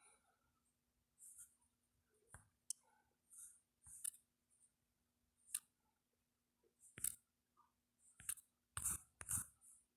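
Faint, irregular clicks and short hissy ticks, about a dozen, over near silence with a faint steady hum. The loudest clicks come near the end.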